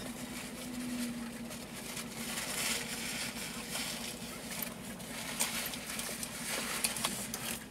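Steady low hum inside a car cabin, with faint scattered rustles and small clicks from people eating.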